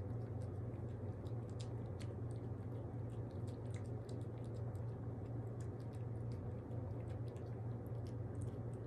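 A pet chewing and eating wet food, giving many small irregular clicks and smacks. A steady low hum runs underneath.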